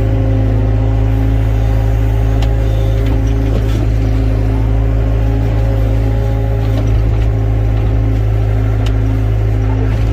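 Excavator's diesel engine running at a steady speed, a constant deep hum with a few faint clicks over it.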